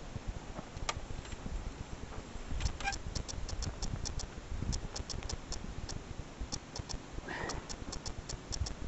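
Small wood fire crackling with faint, irregular sharp ticks, several a second, over a low rumble of wind on the microphone.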